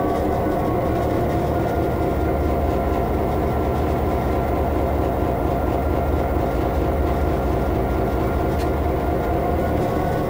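Class 66 diesel-electric locomotive's EMD two-stroke V12 engine running steadily as the freight train moves slowly, heard from inside the cab: a loud, even drone with a deep rumble beneath it. A faint sharp click comes about eight and a half seconds in.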